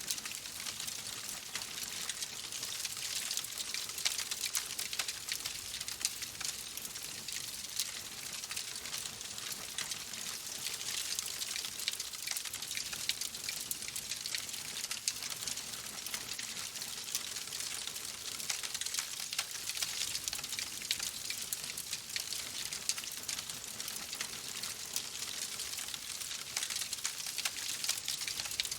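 Wood fire crackling steadily in a fireplace: a constant hiss with dense, tiny pops and snaps.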